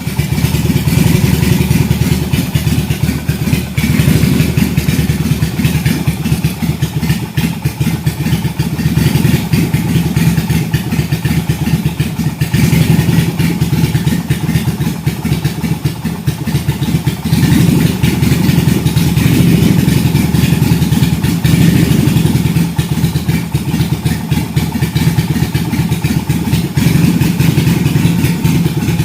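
V-twin motorcycle engine idling with a lumpy, rapid pulsing beat, its level swelling slightly several times.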